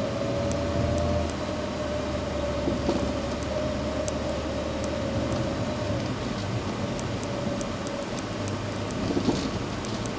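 Car being driven, heard from inside the cabin: steady engine and road noise, with a steady hum that fades out about eight seconds in and a few faint ticks.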